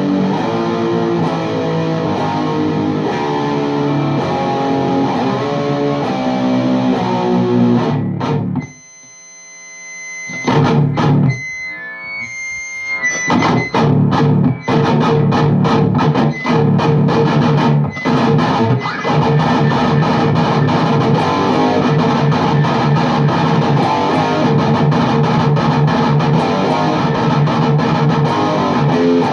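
Distorted electric guitar, a Les Paul Custom, played through a high-gain VHT Fryette Deliverance D60 tube head and a 4x12 cabinet with Vintage 30 speakers. It is riffing, cuts out about 9 s in, leaves a few sparse ringing notes, and picks up again around 13 s with a fast, steady chugging riff.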